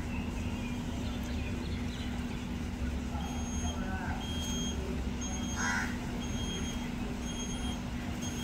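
A high electronic beep repeating a little faster than once a second, starting about three seconds in, over a steady low hum. A crow caws briefly about two seconds after the beeping starts.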